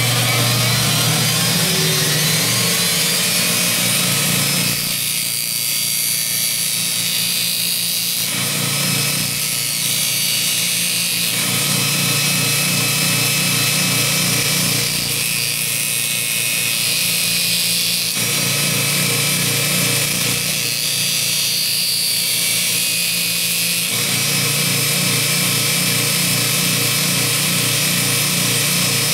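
Half-horsepower Baldor grinder driving a 10-inch expander wheel with a 100-grit zirconia sanding belt. It comes up to speed in the first second or so, then runs steadily. A steel fuller is ground cold against the belt in several spells of a few seconds each.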